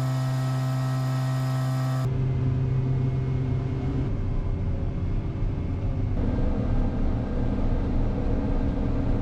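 Grain-drying equipment (dryer and grain blower) running with a steady mechanical hum. About two seconds in it breaks off abruptly into a low, uneven engine rumble.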